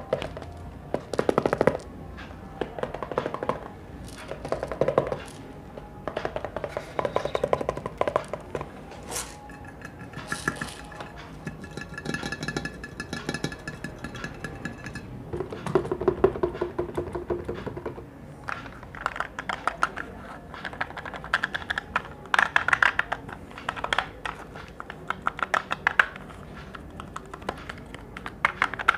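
Close-up ASMR tapping: quick runs of fingertip taps and clicks on objects, coming in clusters. About ten seconds in, a pitched ringing note holds for several seconds, followed by a lower steady tone.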